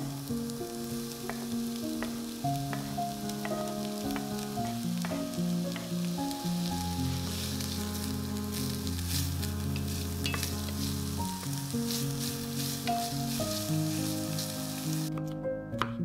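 Food sizzling as it fries in oil in a pan, with a few clicks from stirring, over soft background music. The sizzle stops about a second before the end.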